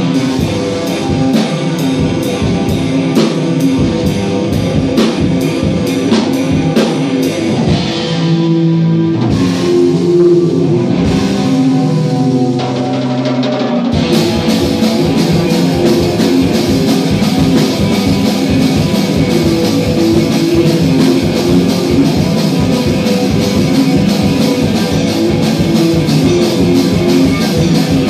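Electric guitar and drum kit playing a loud rock song together. The drums thin out for a few seconds around the middle while the guitar holds notes, then both come back in full at about fourteen seconds.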